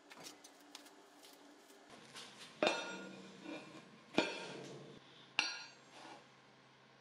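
Light metallic taps and clinks, then three sharp metal-on-metal strikes about a second and a half apart, each ringing briefly like struck steel.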